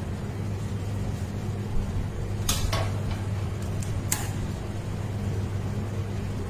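A steady low hum, with a few short sharp clicks about two and a half and four seconds in.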